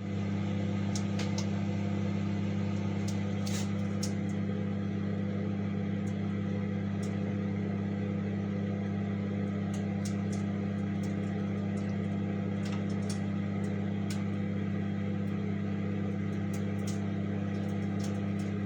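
COMFEE 700W compact microwave oven running: a steady mains-frequency hum from its transformer and fan, with a few faint ticks scattered through it. It starts and stops abruptly.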